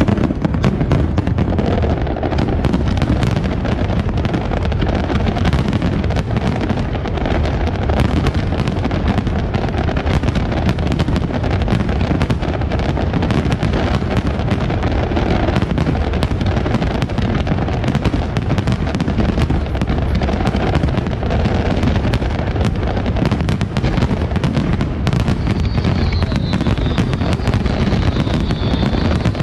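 A dense barrage of aerial firework shells bursting, with loud bangs and crackles overlapping so closely that there is no pause between them.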